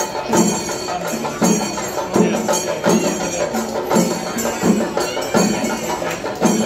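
Percussion music with a steady beat: a drum stroke about every three-quarters of a second over continuous ringing cymbals.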